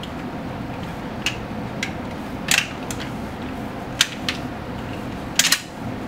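Plastic Panduit wiring-duct cover being pressed onto its slotted duct, snapping into place in a run of short sharp clicks, the loudest a quick pair near the end.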